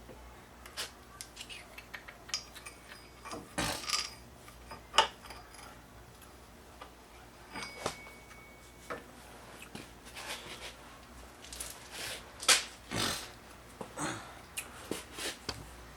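Irregular clinks, taps and knocks of metal hand tools and parts being handled, a few of them louder.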